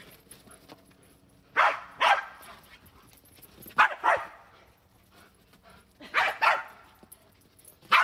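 A dog barking in excited play, the barks coming in quick pairs: three pairs about two seconds apart, with a fourth beginning right at the end.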